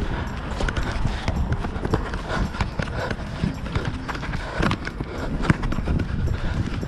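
Running footsteps on an artificial-turf football pitch, heard close from a player-worn action camera: a quick, uneven patter of footfalls and knocks over a low rumble.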